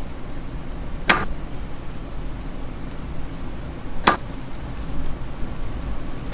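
Three sharp knocks, each about three seconds apart, over a steady low rumble.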